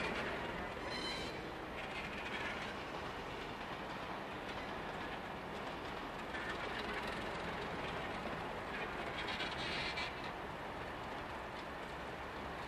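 Cold, unsteamed NSW C38-class steam locomotive 3830 and its tender being towed slowly over the rails. Steady wheel rumble, with a few short high squeals from the wheels on the track about a second in and again around nine to ten seconds.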